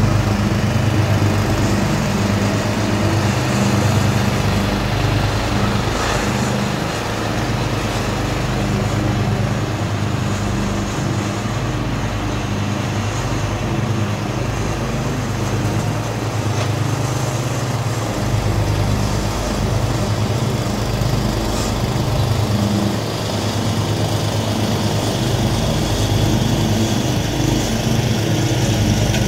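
The small single-cylinder engines of a Craftsman 12.5 hp riding mower and a towed 60-inch Swisher pull-behind mower (13.5 hp) running steadily under load while mowing long grass.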